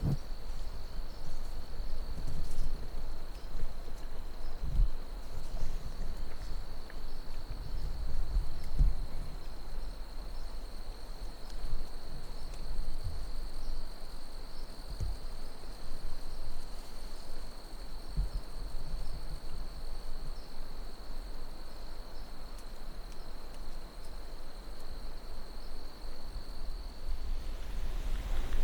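A steady, high-pitched insect trill that fades out near the end, over irregular low rumbling thumps of wind on the microphone.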